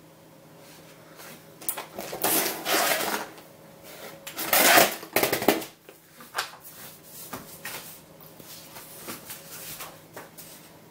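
A paper instruction sheet rustling loudly twice as it is handled and laid down on a table, followed by a scatter of lighter handling clicks and rustles.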